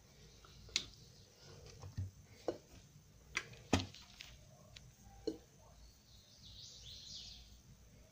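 Handling sounds of argan oil being added to a bowl of sellou: scattered light clicks and taps, about eight in five seconds, then a brief soft hiss near the end.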